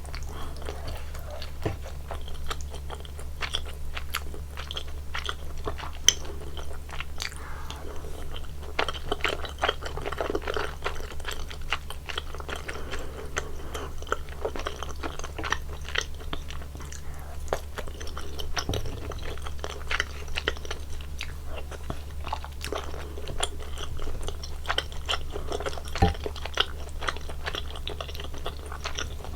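Close-miked eating of spicy tteokbokki rice cakes: continuous chewing with many small mouth clicks, over a steady low hum.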